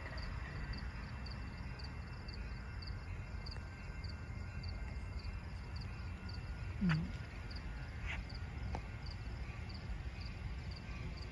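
Crickets chirping steadily, about two chirps a second, over a low steady rumble. A short, low sound that dips and rises in pitch comes about seven seconds in.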